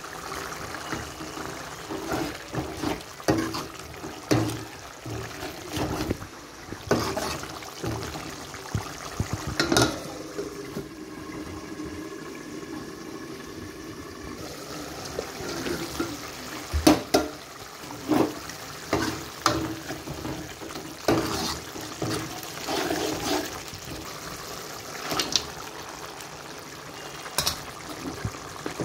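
A metal ladle knocks and scrapes against a steel cooking pot of simmering curry sauce, over a steady hiss. There are a few louder metal clanks as a steel plate is used as a lid on the pot.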